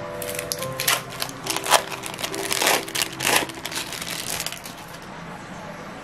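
Thin plastic wrapper of a processed cheese slice crinkling and crackling as it is handled and peeled off, over soft background music that fades out about halfway.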